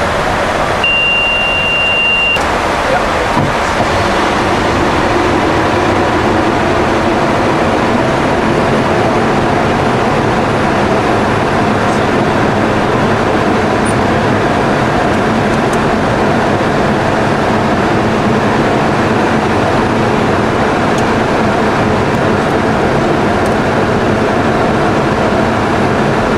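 Steady flight-deck noise of a Boeing 707-based jet in flight: a loud, even rush of airflow with engine hum beneath. About a second in, a steady high beep sounds for about a second and a half.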